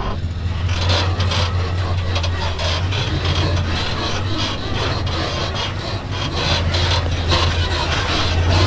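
Heavy off-road wrecker truck crawling over sandstone rock: a steady low engine drone under gritty scraping and crunching from its big tyres grinding on the rock.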